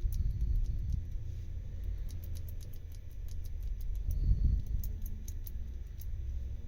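Number wheels of a Smith & Locke combination padlock clicking through their detents as they are turned, in quick irregular runs of small clicks, over the rumble of the lock being handled. The shackle is held under tension to feel for a binding wheel while decoding the combination.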